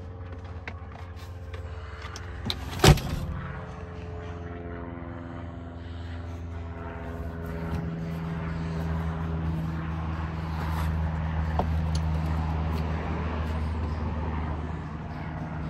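Ford Flex's 3.5-litre EcoBoost V6 idling with a steady low hum, and one sharp knock about three seconds in.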